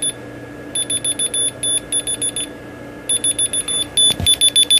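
Whistle key finder's piezo beeper sounding rapid trains of short high-pitched beeps, about seven a second, in two bursts with a short pause between.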